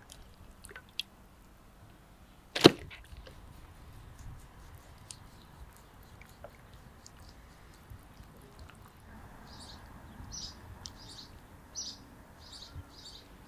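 A single loud slap about three seconds in as a heavy raw lamb fat tail is dropped onto a wooden cutting board, followed by small scattered clicks of knife work on the board. Near the end a bird chirps about seven times in quick succession.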